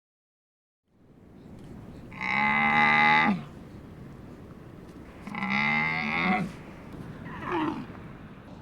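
Cow mooing: two long moos about three seconds apart, then a shorter, fainter call near the end, over a steady background hiss that starts about a second in.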